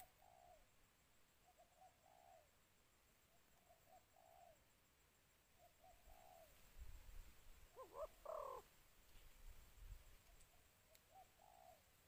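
Spotted dove cooing faintly: short phrases of soft notes ending in a longer coo, repeated about every two seconds. About eight seconds in comes one louder, higher call.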